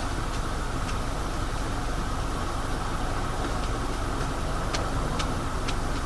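Steady road and engine noise inside a moving car's cabin. About two-thirds of the way through, a turn signal starts ticking evenly, about two clicks a second.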